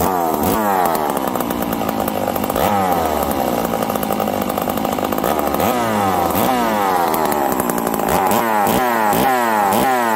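Stihl 038 Magnum two-stroke chainsaw running after a fresh start, blipped on the throttle again and again, its revs rising and falling, with quicker blips over the last few seconds. It starts and revs cleanly after sitting several days, and it is judged ready to cut wood.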